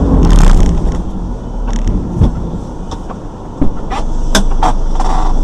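Car driving on a snowy road, heard from inside the cabin: steady low engine and road rumble, loudest in the first second, with a few sharp knocks later on.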